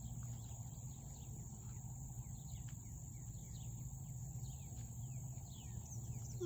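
Rural pond-side ambience: insects buzzing steadily at a high pitch, with many short falling chirps from birds scattered throughout, over a low steady hum.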